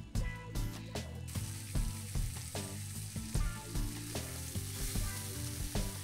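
Olive oil sizzling in a hot cast iron skillet as it heats toward smoking; the hiss sets in about a second in. Background music with a steady beat plays underneath.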